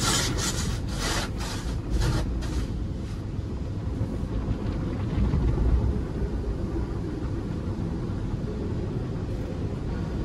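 Tunnel car wash heard from inside the car: water spray hissing against the windshield in pulses for the first few seconds, then fading away. A steady low rumble of the wash machinery and cloth brushes rubbing over the car body follows.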